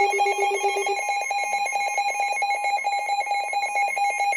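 Electronic emergency alert tone, a shrill tone pulsing very rapidly like a ringing bell. A lower tone beneath it stops about a second in.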